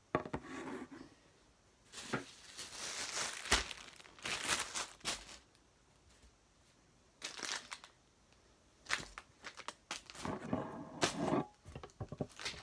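Bursts of rustling and crinkling with a few sharp knocks, from objects being handled and moved about close by. The longest stretch comes about two to five seconds in, with shorter bursts later and more handling near the end.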